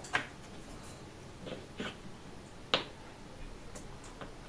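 Xiangqi pieces clicking on the board as a piece is moved and set down: a few soft taps and one sharper clack near the middle.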